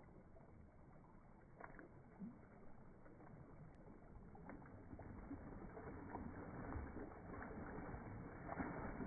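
Faint splashing and sloshing of water as a Muscovy duck bathes in an icy pool, growing louder over the last few seconds.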